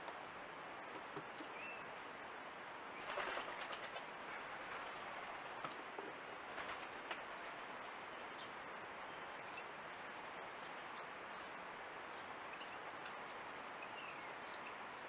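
A blue tit at a wire suet-ball feeder: a brief flurry of wing flutter and clatter about three seconds in, then a few sharp ticks of claws and beak on the cage. Underneath is a steady microphone hiss with a thin high whine, and a few faint chirps far off.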